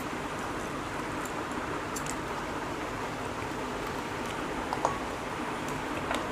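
Steady background hiss with a few faint, scattered clicks from chewing and from fingers handling food on plates, including one slightly louder short sound a little under five seconds in.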